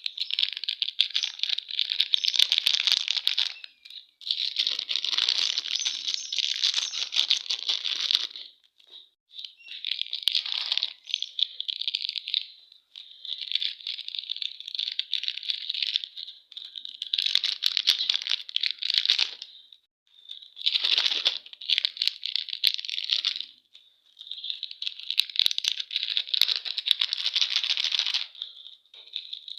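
Plastic candy wrappers crinkling and tearing open, in about seven stretches of a few seconds each with short pauses between.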